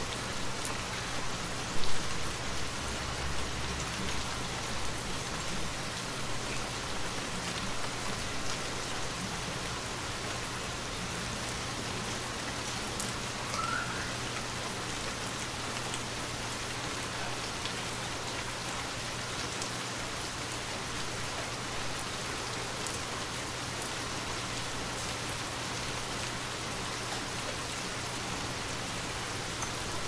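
Gentle rain falling steadily on a wet paved path, drops pattering and splashing into shallow puddles. One brief, louder knock about two seconds in.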